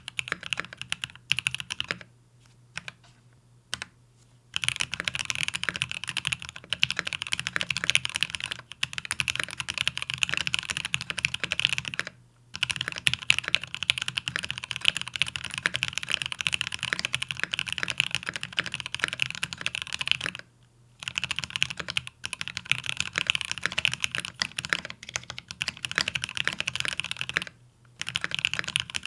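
Fast typing on an XO K80 PC mechanical keyboard with lubed Durock L4 linear switches and PBT XDA-profile macaron keycaps, on a deskmat. Steady runs of quick keystrokes are broken by a few short pauses, the longest about two seconds in.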